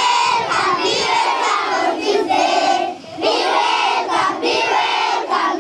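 A crowd of young schoolchildren calling out and chanting together, with a short break about three seconds in before the voices pick up again.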